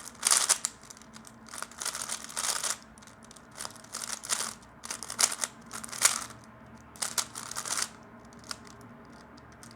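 3x3 Rubik's cube being turned quickly in a speedsolve: bursts of plastic layers clicking and rattling, in clusters separated by short pauses, with only a few faint clicks near the end.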